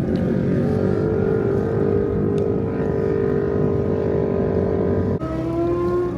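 Sport motorcycle engines running at high revs on a race track, a steady high engine note. About five seconds in the note drops abruptly to a lower pitch.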